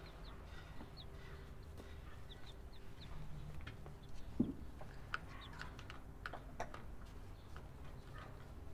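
Young white chickens making faint short calls in their cage, then a knock about four seconds in, followed by a quick run of sharp ticks as a bird pecks in a plastic feeder.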